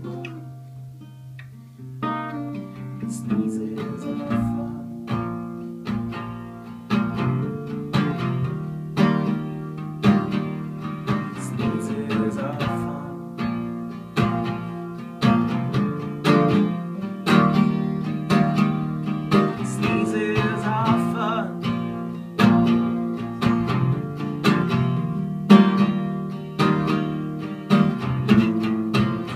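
Instrumental passage of a song, led by plucked and strummed acoustic guitar. A low note is held for about two seconds, then regular picked notes and chords follow.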